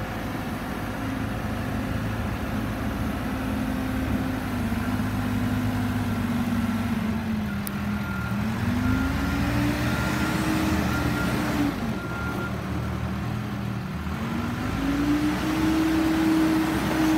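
Caterpillar 426C backhoe loader's four-cylinder diesel engine running as the machine drives, its speed dropping and rising several times: revving up about halfway through, easing off, then revving up again near the end.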